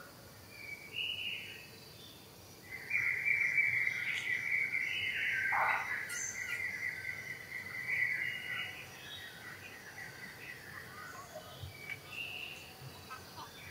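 Outdoor insect and bird sound: a constant high insect whine, with a louder steady insect drone that comes in about three seconds in and fades after about six seconds, and short bird chirps scattered through.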